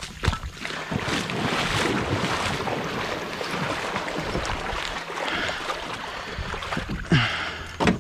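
Steady wind noise buffeting the microphone, with shallow water sloshing as the carrier wades to the boat. A brief low vocal sound comes near the end.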